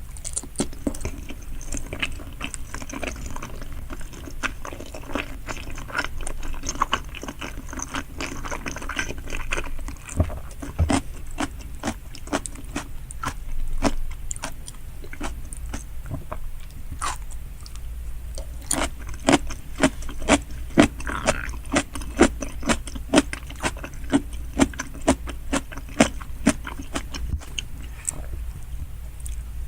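Close-miked chewing and biting of giant salmon sushi: wet mouth clicks and soft crunches throughout, with sharper bites coming about once or twice a second in the second half, over a steady low hum.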